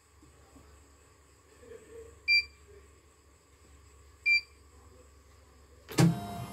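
CNY portable embroidery machine beeping twice, short electronic beeps about two seconds apart. Near the end the start button is pressed and the machine's motor and embroidery-frame drive start up with a sudden mechanical whir.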